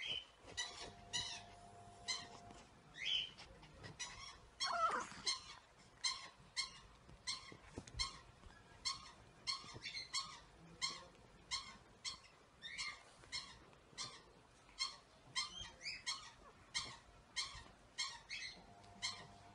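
Pomeranian yapping in a long, steady run of short high yaps, about two a second, with one longer falling whine about five seconds in.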